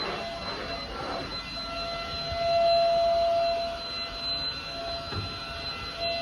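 Gaabor vacuum cleaner motor running with a steady high whine over rushing air, briefly louder a little before the middle.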